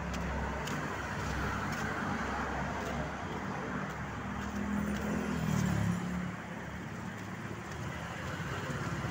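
Street traffic: vehicles running past on the road in a steady wash of noise, with one engine swelling and fading about five to six seconds in.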